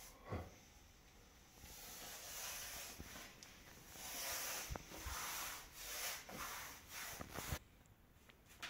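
Irregular rubbing strokes against a surface, starting about one and a half seconds in and stopping near the end, with a short knock just after the start.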